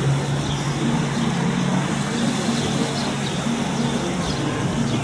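Steady outdoor background noise with a low, steady hum underneath.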